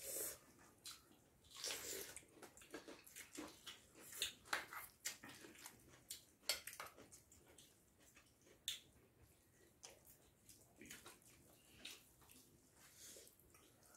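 Faint eating sounds of people eating rice and curry by hand: soft, irregular wet squishing and smacking from fingers mixing rice on the plates and from chewing.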